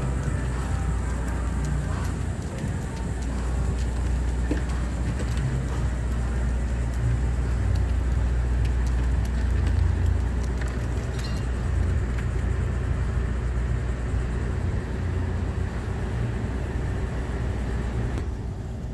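Street ambience while riding along on a scooter: a steady low rumble with car traffic around.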